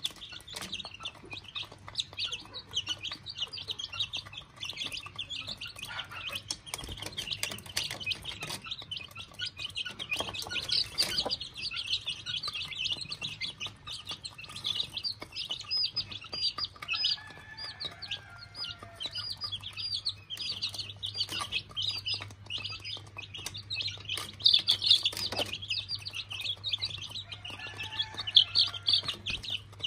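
A brood of young chicks peeping continuously in high, rapid calls while feeding, with a hen's lower clucks now and then, and scattered sharp ticks of pecking at the feed bowl.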